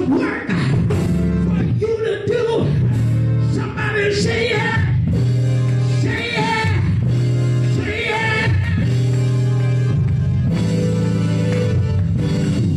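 Gospel music with a voice singing over steady, held chords.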